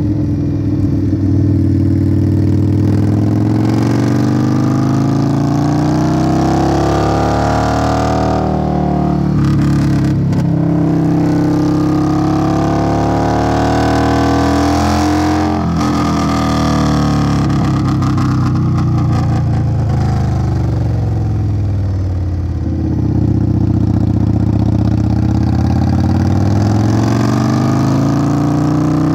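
Indian Scout Bobber's V-twin running through a Hacker Custom Mayhem aftermarket exhaust while riding: the engine note rises as it accelerates, drops at each gear change, falls away as it slows, then holds steady near the end.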